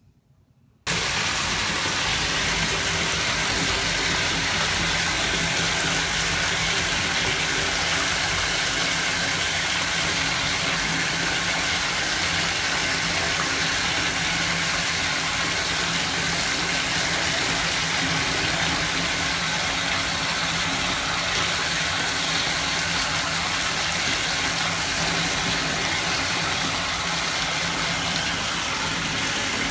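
Bath tap running hard into a bathtub, the stream splashing steadily into foaming bubble-bath water. It starts suddenly about a second in and keeps on unchanged.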